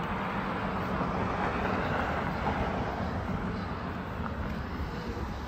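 Steady rush of road traffic, with a low rumble, swelling around two seconds in as a vehicle passes.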